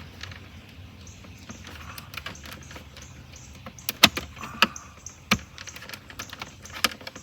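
Plastic clicks and snaps as a part of an air conditioner's plastic housing is prised and popped out. There are a handful of sharp snaps, the loudest about four seconds in.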